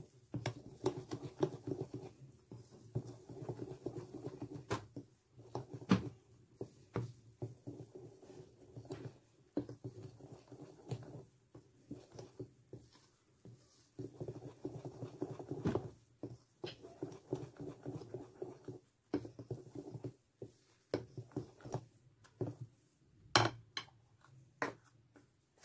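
Hand whisk beating thick cake batter in a glass bowl: fast, irregular wet tapping and scraping in spells, with a couple of sharper knocks of the whisk against the bowl.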